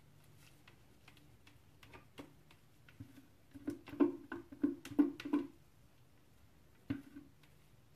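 Scattered faint clicks, then a quick run of six sharper knocks about three a second, and one more knock near the end.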